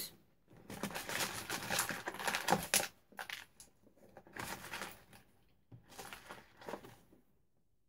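Small hard craft pieces such as buttons and beads clicking and rattling against each other as a hand rummages through them. The clicking is dense for the first few seconds, then comes in sparser bunches and stops near the end.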